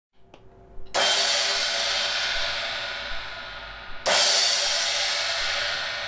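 Zildjian A Custom EFX 16-inch crash cymbal struck twice with drumsticks, about three seconds apart, each crash ringing and slowly dying away. A few faint taps come just before the first crash.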